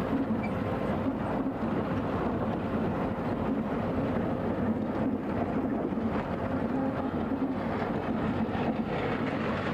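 Vehicle engine running steadily under way, with road noise from driving on a rough dirt track, heard from inside the vehicle.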